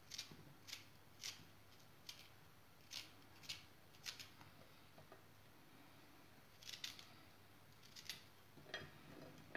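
Knife cutting chunks off a raw zucchini held in the hand: a series of faint crisp snicks, about two a second, pausing for a couple of seconds midway.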